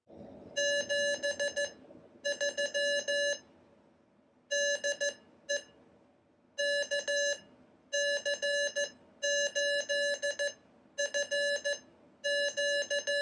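Morse code practice oscillator, keyed from its iambic paddle, beeping Morse code as a steady mid-pitched tone. The tone is switched on and off in dits and dahs, grouped into characters with short pauses between.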